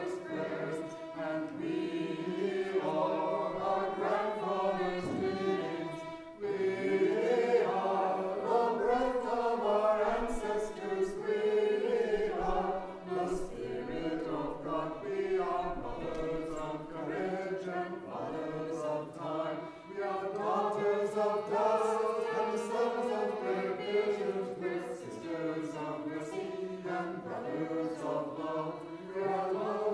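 A small mixed choir of men and women singing together in parts, with a brief break about six seconds in.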